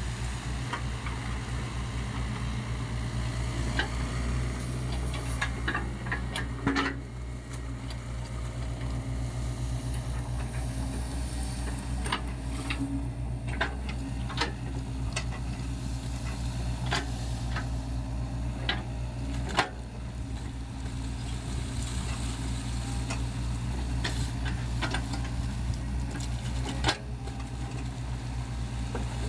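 Sany SY55C mini excavator's diesel engine running steadily, with sharp knocks and clanks now and then.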